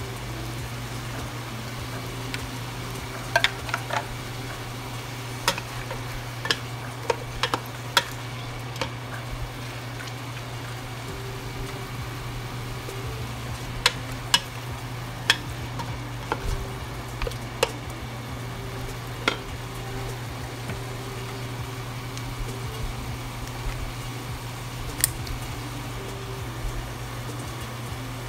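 Chicken pieces sautéing in a stainless steel pot with a light sizzle, and about fifteen scattered sharp clacks as the pieces are turned and knock against the pot, over a steady low hum.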